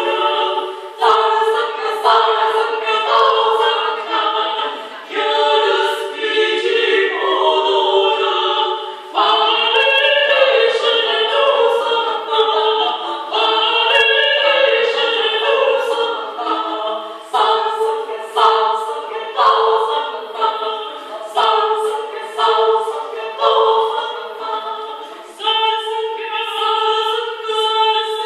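A women's vocal ensemble singing a cappella in harmony, in phrases of a few seconds each, with one part holding a steady note beneath the moving melody.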